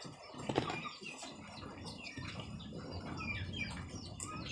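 Birds chirping: many short falling chirps that overlap, getting busier after about a second and a half, over a low steady rumble, with one soft click about half a second in.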